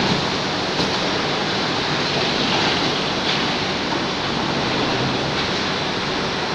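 Steady, dense machinery din of a bottling line's palletizer and conveyors running, with a few faint clicks.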